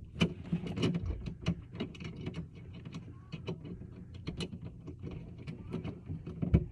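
Irregular small clicks, taps and scrapes of hand tools and drain hardware being handled while a tub drain and overflow assembly is fitted.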